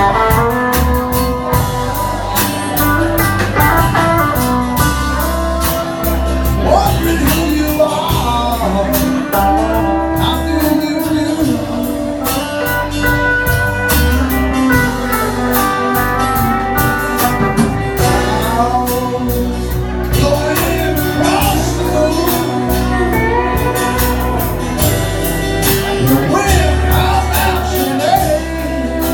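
Live band playing a slow blues-rock song, with a singer, electric guitar, bass and a steady drum beat.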